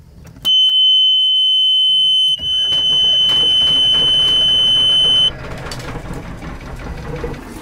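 Volvo Penta inboard engine panel's alarm buzzer sounding a loud, steady high tone as the power is switched on. About two seconds in a low rumble starts as the starter cranks and the engine catches, and the buzzer cuts off about five seconds in once the engine is running, leaving the engine idling.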